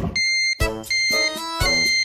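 Background music: a synthesizer-keyboard tune of short, separate notes with brief gaps between them.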